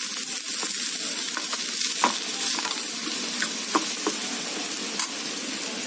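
Chopped capsicum, green chillies, garlic and spring onion sizzling in hot oil in a stainless steel frying pan as they sauté, stirred with a few sharp clicks of the utensil against the pan.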